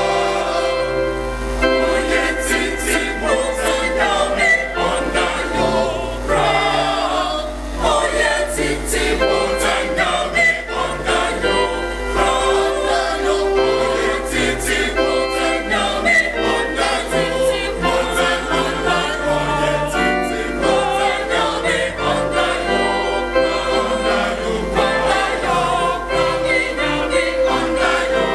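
A mixed choir of women's and men's voices, a Methodist singing band, singing an anthem together in parts.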